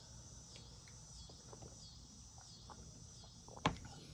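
Faint insect chirping in the background, a high call repeating about every half second. A single sharp knock sounds near the end, with a few faint clicks scattered before it.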